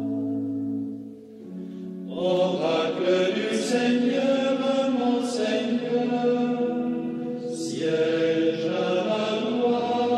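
Psalm chanted in song, with long held notes; the sound dips briefly about a second in, then the chanting resumes fuller.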